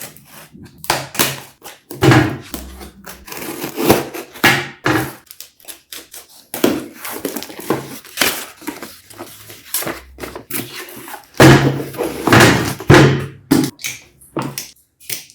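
Cardboard box and packaging being handled and opened: an irregular run of thunks, taps and scraping rubs, with a cluster of louder knocks near the end.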